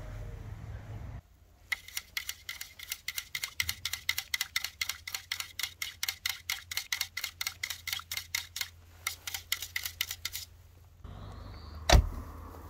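A rapid, even series of sharp clicks, about four or five a second, stops about ten seconds in. A single loud knock follows near the end.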